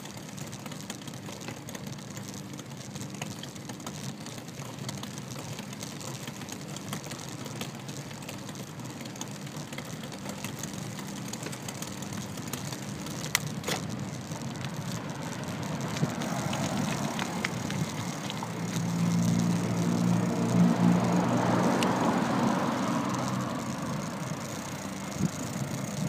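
Steady road and wind noise of a bicycle ridden along a street, with a few sharp clicks. From about 16 seconds in, a car passing close swells, its engine and tyre noise loudest for a few seconds before fading away near the end.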